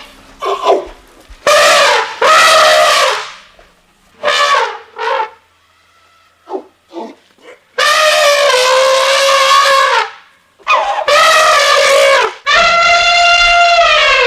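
Made-up Styracosaurus call built from reworked rooster crows and a cartoon puppet creature's voice: a string of about five loud pitched calls, each one to two seconds long, with short yelps in between.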